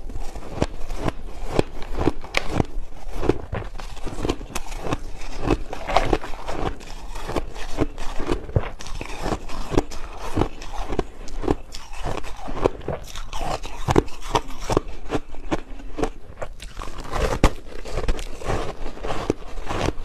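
Soft crushed white ice being bitten and chewed into a close microphone: a steady run of quick, irregular crunches, several a second.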